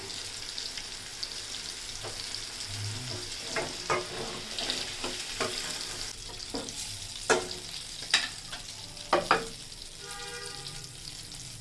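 Potatoes frying in oil in a pan, sizzling steadily, while a cooking utensil scrapes and knocks against the pan about seven times as they are stirred.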